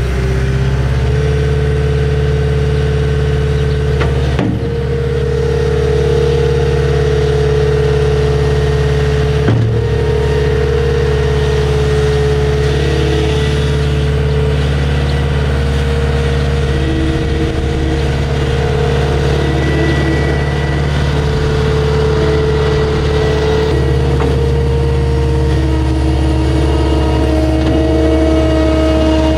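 Caterpillar 242D skid steer's diesel engine running steadily as the machine works, with a steady whine over it. Two brief knocks sound, one about four seconds in and another near ten seconds.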